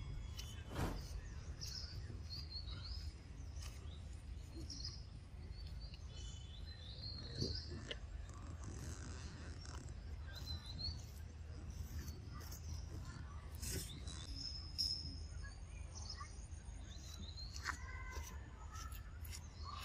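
Outdoor ambience: small birds chirping now and then in short high twitters over a steady low rumble, with a few brief soft knocks.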